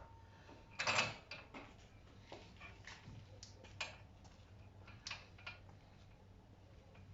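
Scattered metallic clinks and knocks of tools and steel parts being handled during wheel hub bearing work, the loudest clank about a second in.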